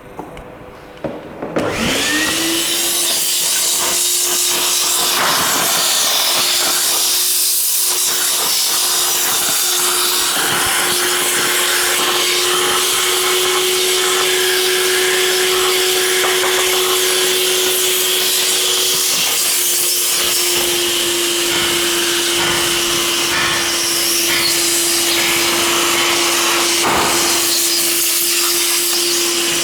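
A few clicks, then the MLA A40/A45 copy router's high-speed spindle motor starts about a second and a half in, its whine rising quickly to a steady pitch. It then runs steadily with a loud hiss of cutting as it mills a lock pocket in a steel door profile.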